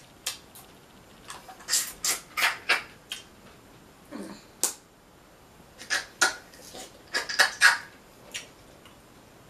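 Close-up eating noises of someone picking at and eating boiled Dungeness crab: sharp clicks and cracks of shell and mouth, coming in three clusters of quick clicks, the loudest near the end.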